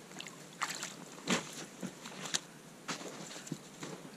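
Irregular splashing of water in an ice-fishing hole and crunching in snow as a small pike is pulled up through the hole by hand-line and landed on the ice: a scatter of short splashes and crunches, the loudest about a second in.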